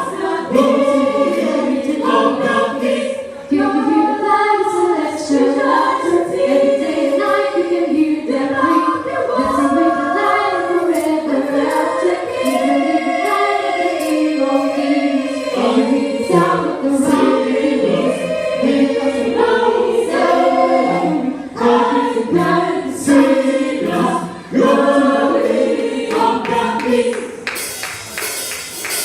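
A choir of mixed voices singing together with no drums, in sustained, shifting notes.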